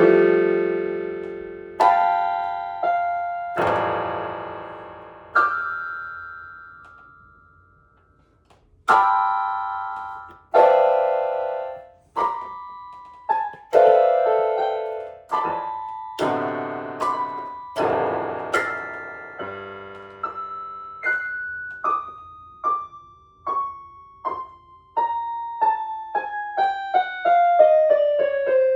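Solo piano music: separate chords and notes struck and left to ring until they die away, with a pause of a couple of seconds about a quarter of the way in. Over the last third a run of single notes steps steadily downward in pitch.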